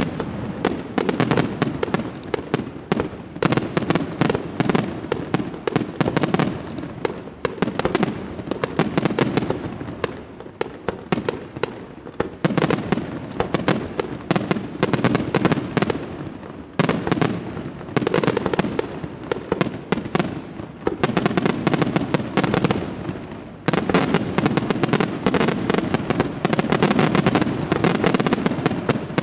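Aerial fireworks display: a dense, continuous barrage of shells bursting in rapid overlapping bangs and crackles. The barrage eases a little about a third of the way in, dips briefly twice, and builds back to a dense run of reports near the end.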